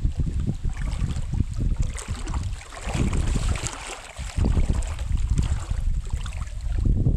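Wind buffeting the microphone in irregular gusts, with a lighter hiss over it about two to four seconds in.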